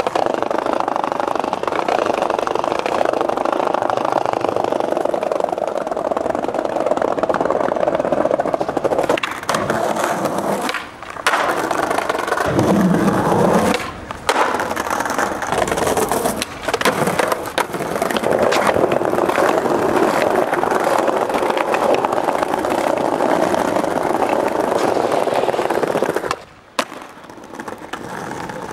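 Skateboard wheels rolling on rough street pavement, a steady gritty rumble, with sharp clacks of tail pops and landings in the middle stretch and several abrupt breaks in the sound.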